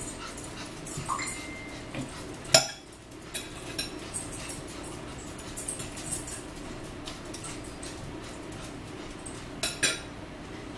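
A metal fork clinking and scraping against a plate, with scattered sharp clicks of cutlery. The loudest click comes about two and a half seconds in, and a quick pair comes near the end.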